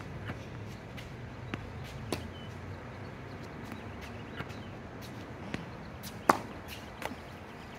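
Tennis ball struck by a racket on a backhand, a sharp crack about six seconds in that is the loudest sound, with a few fainter knocks of balls before and after it.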